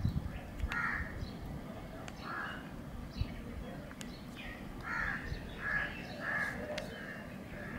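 Birds calling: a string of about eight short calls, a few early on and more bunched together in the second half.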